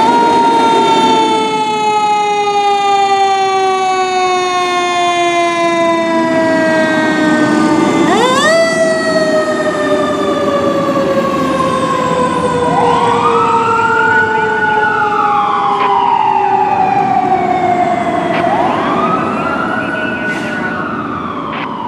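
2018 Pierce Arrow XT fire engine's sirens, loud: a mechanical siren winding slowly down in pitch, spun sharply back up about eight seconds in and winding down again, with an electronic siren wailing up and down twice over it in the second half.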